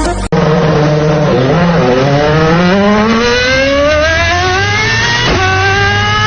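Small petrol engine of a remote-controlled robotic lawn mower speeding up smoothly over about four seconds, then running steadily at the higher speed.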